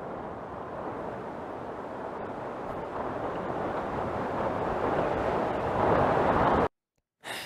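A dense rushing noise that swells steadily louder, then cuts off suddenly near the end, followed by a short burst that fades. It is a sound-design effect on a documentary soundtrack.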